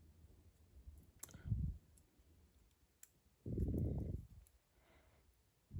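Light metal clicks of a bicycle chain and chain tool being handled while a chain pin is fitted, with a soft low thud about a second and a half in and a longer low rumble of handling around four seconds.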